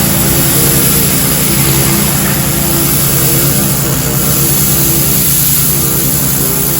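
Pressure washer running steadily, its motor holding an even hum with a rapid low pulse under the constant hiss of the water jet spraying through a telescoping pole wand.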